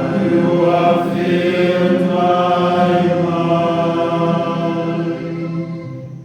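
Choir of voices singing a slow hymn in long held notes, fading away near the end.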